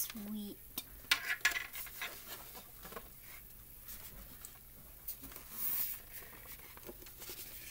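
Hard plastic clicking and scraping as the hinged clips on a Red Ranger helmet replica's shell are pushed and the shell is worked open. A cluster of clicks comes about a second in, and a brief scrape comes near the end.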